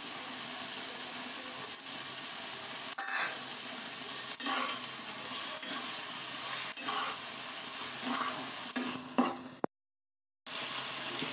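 Chopped tomato sizzling as it fries in spiced masala paste in a non-stick kadai, with a spatula scraping and stirring through it about once a second. The sound drops out for under a second near the end.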